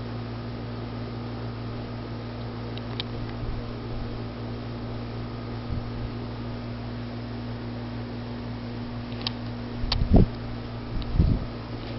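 Hampton Bay Veranda 2 ceiling fan running steadily on high speed, a constant motor hum over an even whoosh of air. Two short low thumps come near the end.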